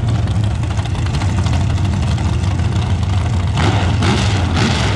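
A vehicle engine idling steadily, a constant low hum with no revving.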